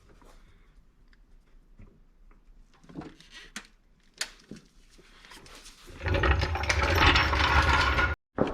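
Scattered light clicks and knocks of hand tools on metal. About six seconds in, a ratchet wrench tightens a limiter-strap bolt in a loud, rapid ratcheting burst of about two seconds that cuts off suddenly.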